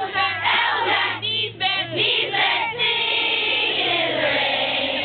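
A group of voices singing together loudly, ragged and overlapping, then holding a long note together from about three seconds in.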